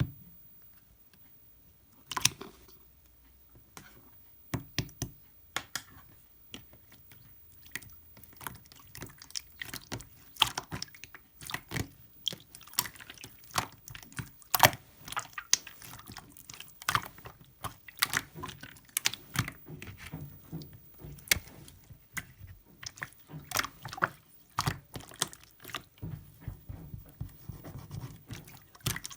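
Irregular wet clicks and crackles: a few isolated ones about two seconds in, then coming thick and fast for the rest of the time.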